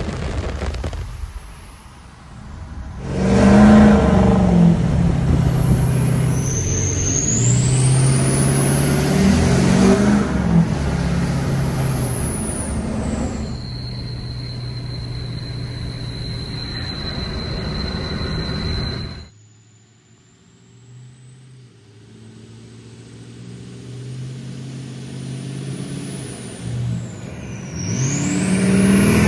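Built 6.0 Powerstroke V8 turbodiesel with a 10-blade KC turbo accelerating hard under load, its high turbo whistle rising and falling over the engine. Later a pass-by: the engine grows louder as the truck comes closer, and near the end it passes close with the whistle sweeping again.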